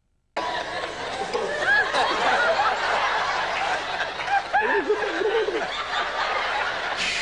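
A large audience laughing, many voices overlapping in chuckles and snickers, starting abruptly about a third of a second in.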